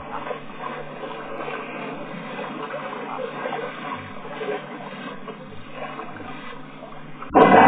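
Water sloshing and splashing as elephants drink and play in a shallow waterhole, with a sudden loud splash or burst of noise near the end.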